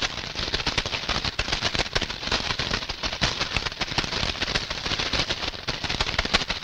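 Cartoon sound effect for a swarm of butterflies attacking people: a dense, steady crackle of rapid clicks like fluttering wings.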